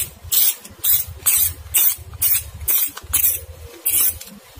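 Hands handling an Okuma Epixor XT 20 spinning reel close to the microphone: a run of short scraping rustles, about two a second.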